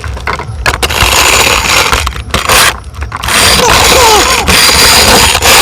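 Plastic toy trucks rattling and clattering as they are handled and rolled, with a few short squeaks about four seconds in.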